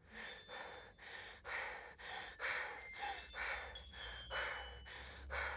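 Rhythmic heavy breathing, short puffs in and out about twice a second.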